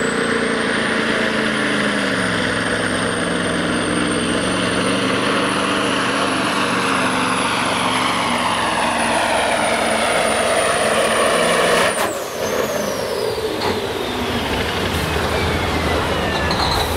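Mack semi truck's diesel engine under full load pulling a sled, its turbocharger whistling high and steady over the engine. About twelve seconds in, a sharp crack cuts the pull off and the turbo whistle winds down.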